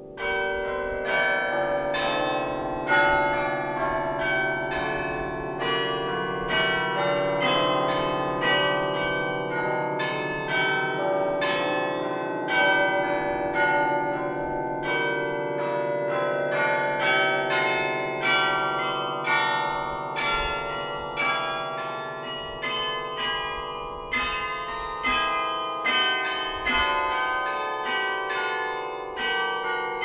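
Hoover Tower carillon playing a melody: tuned bronze bells struck in quick succession, about two to three notes a second, each note ringing on under the next.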